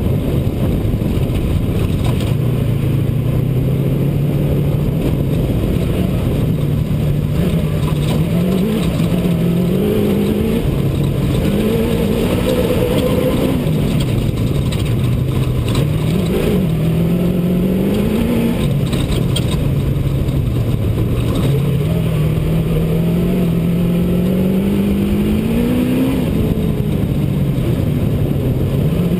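Off-road race truck's engine heard from inside the cab at racing speed, its pitch climbing and dropping several times as the revs rise and fall, over constant noise of the running truck and its tyres on dirt.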